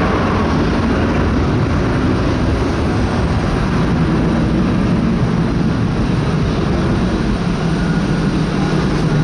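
Boeing 757-200 twin jet engines at takeoff power, giving a loud, steady rumble of jet noise.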